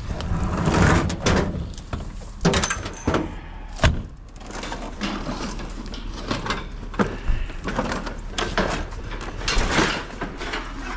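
Scrap metal being shifted and loaded by hand: scraping with irregular clanks and knocks, the sharpest about four seconds in.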